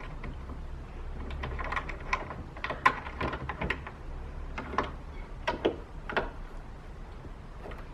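A run of irregular light clicks and knocks, most of them between about one and six and a half seconds in, over a faint low hum.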